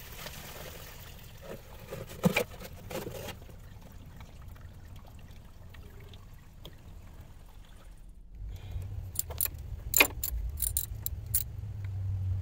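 Metal hand tools clicking and clinking against coolant hose clamps and fittings in a car's engine bay while the hoses are worked off the thermostat. There are a few clicks near the start and then a quiet stretch. About two-thirds of the way in, a quick run of sharp metallic clicks starts over a low steady hum.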